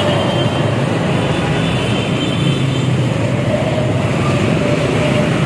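Road traffic close by: a container truck, buses and motorcycles running past, with a steady low engine rumble.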